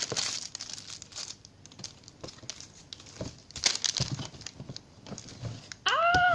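Crinkling and rustling of plastic bags, in irregular short bursts, as squishy toys are rummaged through and handled. Near the end a child's short rising vocal sound.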